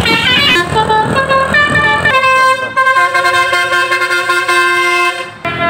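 Basuri telolet bus horn, a set of multi-tone horns playing a quick run of changing notes, then holding one chord of several notes for about three seconds before breaking off near the end.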